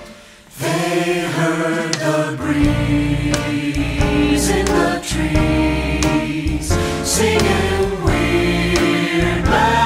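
Mixed SATB choir singing a jazzy swing arrangement in close-harmony sustained chords, over instrumental accompaniment. After a brief hush at the start, the voices enter, and a low bass part joins about two and a half seconds in.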